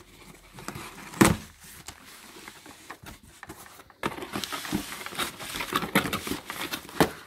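Cardboard shipping box being torn and pulled open by hand: one sharp crack a little over a second in, then from about four seconds in a busy stretch of rustling and scraping as the cardboard flaps are pushed back.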